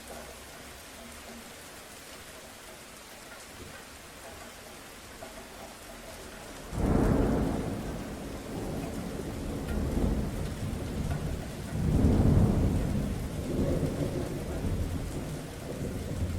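Steady rain falling, then a thunderclap about seven seconds in that sets off a long rolling rumble of thunder, swelling again to its loudest about twelve seconds in before slowly dying away.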